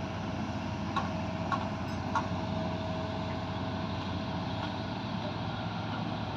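Hydraulic excavator's diesel engine running steadily, with three sharp metallic clanks in the first couple of seconds.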